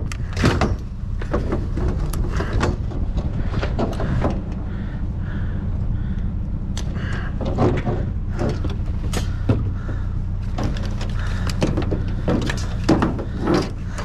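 Junk being handled and shifted: irregular knocks, clatters and scrapes of objects, over a steady low rumble.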